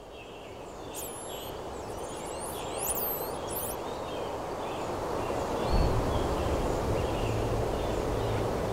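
Outdoor ambience fading in: a steady hiss with birds chirping and whistling in the first few seconds, then a low steady hum joining about six seconds in.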